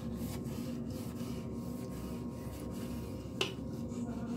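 Scrubbing Bubbles Toilet Fresh Brush pad scrubbing the wet porcelain of a toilet bowl: quiet, repeated rubbing strokes, with one sharp click about three and a half seconds in.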